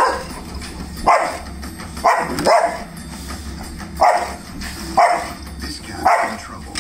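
Boxer dog barking: about seven sharp, loud barks, mostly about a second apart, with two in quick succession.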